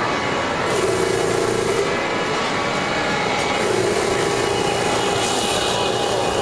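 Model trains running on a layout: wheels rolling on the track and motors whirring. A humming tone swells in three times, about a second, two seconds and a second long.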